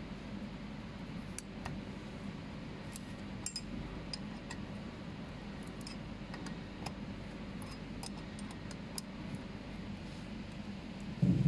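Scattered light metallic clicks of a spanner turning the bolts of the metal terminal clamps on MoSi2 heating elements, over a steady low hum. A louder dull thump comes near the end.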